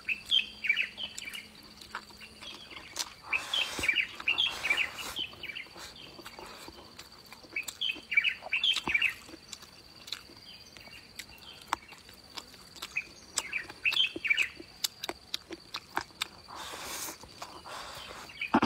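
Small birds chirping in short bursts of quick high notes, several times, over close chewing and mouth clicks from someone eating meat.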